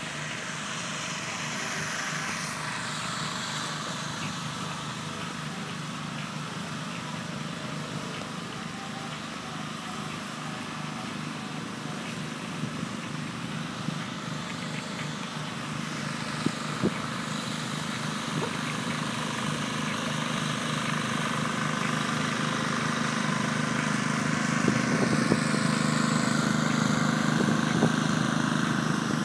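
Steady drone of the electric air blowers that keep the inflatable assault course up, getting louder over the last ten seconds or so, with a few short knocks in the middle.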